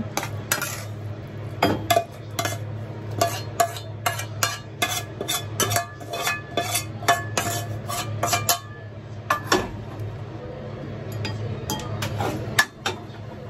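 Plastic spatula scraping and knocking against an aluminium saucepan as food is scraped out onto a plate: a quick run of knocks and scrapes that thins out about nine seconds in, with a couple more knocks near the end. A steady low hum runs underneath.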